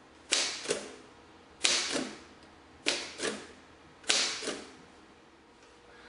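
Old manual typewriter typed on slowly, one key at a time: four loud clacks about a second and a quarter apart, each a quick double clack.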